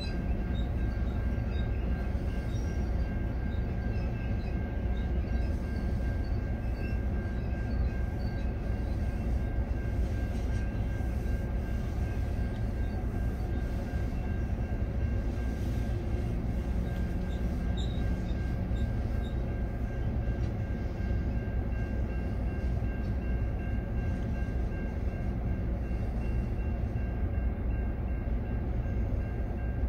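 A freight train of covered grain hopper cars rolling past over a level crossing, its wheels on the rails making a steady, even rumble, heard from inside a car.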